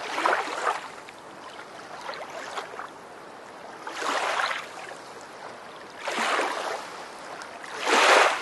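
Surges of rushing, wave-like noise, four of them about two seconds apart, each swelling and fading within a second, the last the loudest: whoosh-and-wash sound effects of an animated outro.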